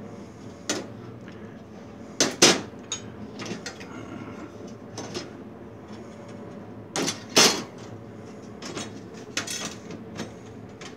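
Irregular metal clanks, knocks and rattles from the sheet-metal cover and latches of an IBM P-series server as the case is opened and the cover is lifted off. The loudest clanks come about two and a half seconds in and again around seven seconds in.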